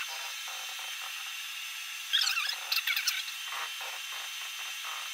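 Tormach 1100MX CNC mill running a probing cycle, moving a touch probe over the flipped workpiece to pick up its corner: a steady hiss with a cluster of short scratchy machine sounds about two to three and a half seconds in.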